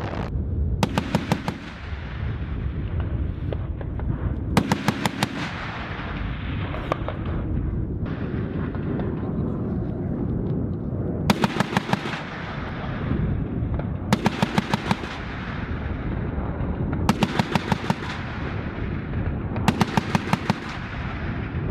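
Short bursts of rapid fire from an AH-1Z Viper's M197 20mm three-barrel Gatling cannon: six bursts, each under a second long, a few seconds apart. Steady helicopter noise fills the gaps between them.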